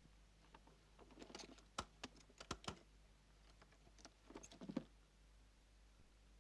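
Faint clicks and short rustles of small objects being handled, in two clusters: one about a second in, and another around four seconds in.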